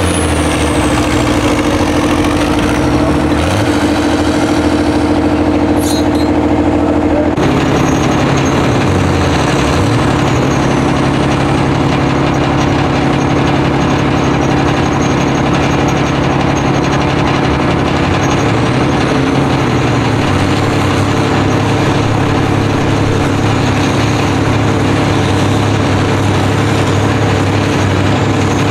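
Vintage tractor engine running hard under full load, holding a steady note while pulling the weighted sled. About seven seconds in the sound changes abruptly to another tractor engine running, its speed dipping and recovering a couple of times.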